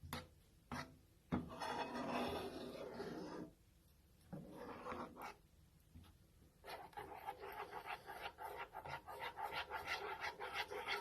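Stirring a thick honey mixture in a skillet: uneven scraping strokes at first, then quick, rhythmic stirring, about three or four strokes a second, from a little past halfway.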